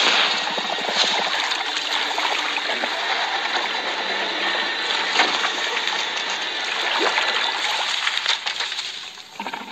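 Swamp water sloshing and trickling in a steady wash of water noise, with a few sharper splashes, softening near the end.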